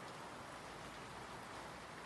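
Steady rain falling, an even hiss of drops on a surface with a few faint individual drop ticks.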